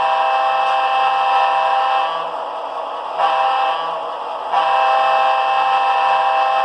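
Model locomotive's Soundtraxx Tsunami sound decoder playing a recorded Leslie A200/S3L combination air horn, a chord of several notes through the model's small speaker. A long blast breaks off about two seconds in, a short toot follows about a second later, and another long blast starts at about four and a half seconds.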